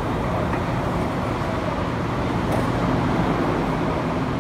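Steady hum and rumble of a Shenzhen Metro Line 1 train standing at an underground platform with its doors open.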